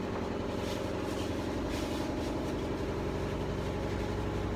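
Steady low mechanical hum, as of a motor running.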